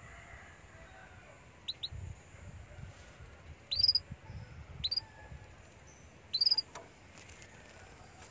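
Canary giving short, sharp call chirps that drop in pitch: a quick faint pair, then three louder single chirps about a second apart, over a faint low rumble.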